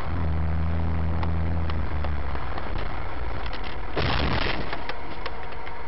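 Vehicle running with a steady low drone, heard through a dashcam, with scattered small clicks and a short loud burst of noise about four seconds in.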